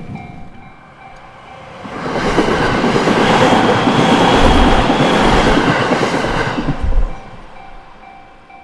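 A train passes over a level crossing. The rush of wheels on rail swells about two seconds in and fades about seven seconds in, with a few low clacks from the wheels. The crossing's warning bell rings in a steady repeating pattern at the start and again near the end.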